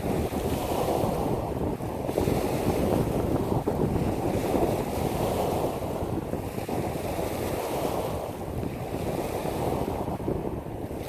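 Small waves breaking and washing over a pebble beach, surging every couple of seconds, with wind rumbling on the microphone.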